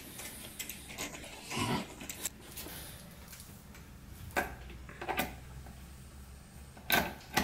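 A few sharp clicks and knocks as a metal quick-connect hose coupler is handled and fitted onto a faucet adapter, with a low room hum.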